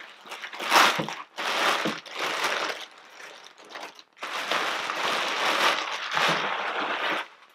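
Clear plastic packaging crinkling and rustling as it is handled and pulled open. It comes in several short bursts, then a longer stretch of continuous crinkling in the second half.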